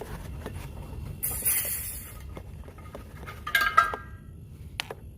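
A short hiss of escaping refrigerant gas about a second in, as the R134a charging hose is uncoupled from the chiller's service port. A cluster of sharp metallic clinks with brief ringing follows past the middle, then a single click near the end, all over a low steady hum.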